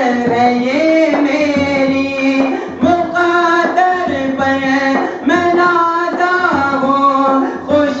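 Man singing a manqabat, an Urdu Sufi devotional song, into a handheld microphone. He holds long notes that step up and down in pitch, with short breath pauses between phrases.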